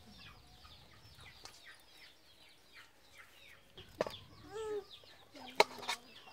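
Chickens in a farmyard: chicks peep over and over with short falling chirps, and a chicken clucks. About two thirds of the way in come a couple of sharp clicks of a knife against a stainless steel bowl.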